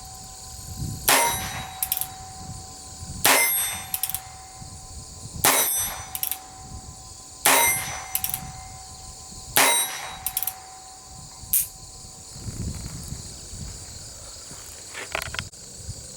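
A Colt Frontier Scout single-action .22 LR revolver fired five times at an even pace, about one shot every two seconds. A ringing tone lingers after each shot. A few light clicks follow near the end.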